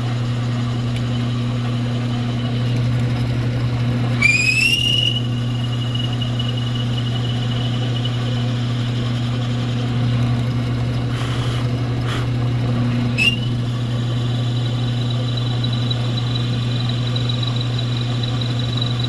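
A power-tool motor hums steadily while a drill bit bores into a pen blank. A high squealing whine slides up about four seconds in and holds, then slides up again and holds higher from about thirteen seconds on.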